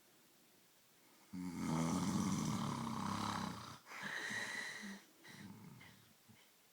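A man snoring in his sleep: one long snore starting about a second in and lasting some two and a half seconds, then a shorter breath with a whistling note in it, and softer breathing near the end.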